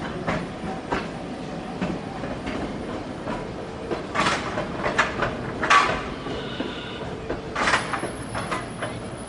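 Okayama Electric Railway streetcar running along its track, its wheels clacking irregularly over rail joints, with the clacks louder in the second half.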